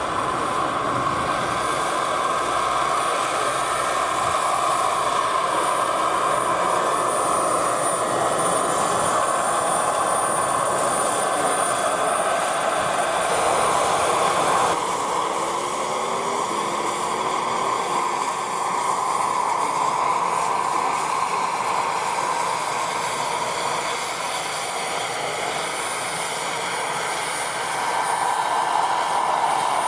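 Radio-controlled scale model helicopter running: a continuous rushing sound with a thin, steady high whine over it. The sound changes abruptly about halfway through.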